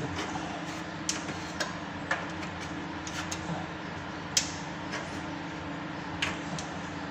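A few separate light clicks and taps of hand work on the washing machine's water-level sensor air hose and its fittings as it is taken off, over a steady low hum.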